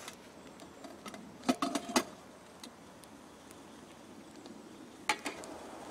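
Metal camp cookware clinking as a small frying pan is set down on a pot on a wire grill rack: a quick cluster of clanks with a short ring about a second and a half in, and one more clank near the end.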